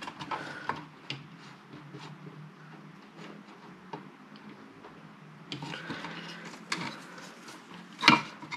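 Scattered small clicks, scrapes and rustles of a circuit board being handled inside a metal power-supply chassis, with a sharper knock about eight seconds in as the board is lifted out.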